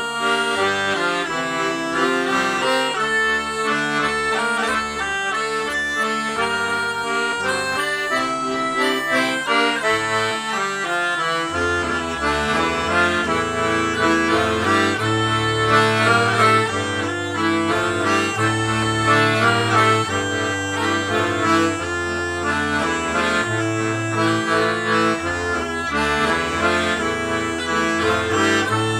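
Melodeon playing a waltz tune in five-four time, with a bass clarinet accompanying. A low bass line comes in about twelve seconds in.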